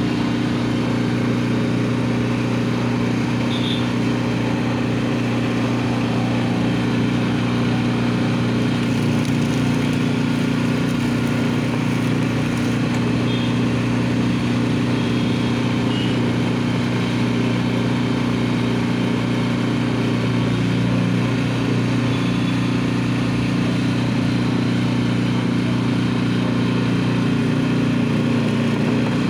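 Sugarcane juice crusher's motor running steadily with an even hum, its rollers turning.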